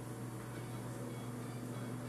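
Shop room tone: a steady low hum under faint background noise.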